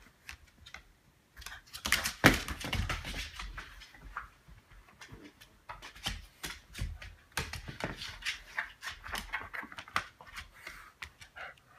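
A Cavalier King Charles Spaniel's claws clicking and scrabbling on a hardwood floor as it runs and turns after a soft frisbee: an irregular run of sharp taps, loudest about two seconds in.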